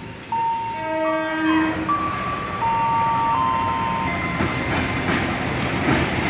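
KAI CC 201 diesel-electric locomotive sounding a short horn blast about a second in, then the steady rumble of the locomotive and its passenger coaches rolling past, with wheel clatter over the rail joints.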